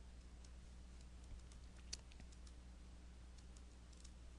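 Near silence: room tone with a steady low hum and a few faint clicks, the clearest about two seconds in.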